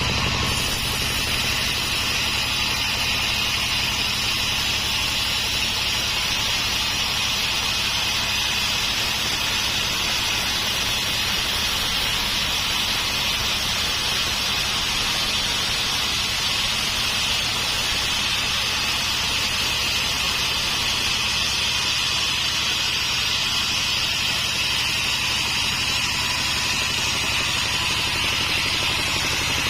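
Homemade sawmill running steadily as its saw cuts through an acacia log, a continuous even machine noise with a high hiss and a low hum that holds without a break.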